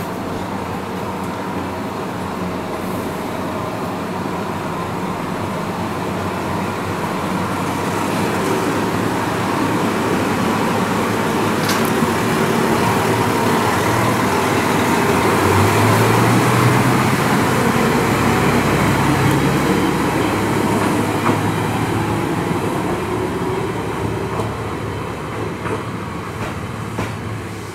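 KiHa 32 diesel railcar pulling out of the station: its diesel engine runs under power and grows louder as the car passes close by. The engine note steps up about halfway through, and the sound then fades as the car moves off down the line.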